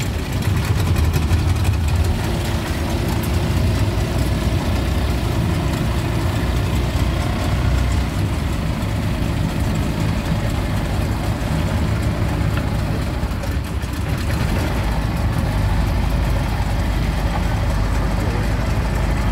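Small motorboat's engine running steadily, heard from aboard the boat.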